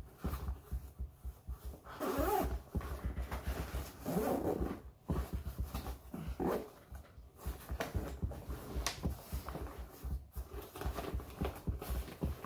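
A large nylon backpack being lifted and turned over, its fabric rustling and its straps and buckles knocking. Two short whining vocal sounds rise and fall about two and four seconds in.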